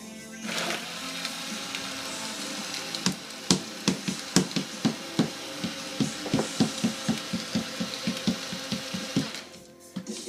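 Small countertop blender running on a thick, chunky mix, starting about half a second in and cutting off near the end. From about three seconds in, sharp rattling knocks come about four times a second as solid pieces are thrown against the jar.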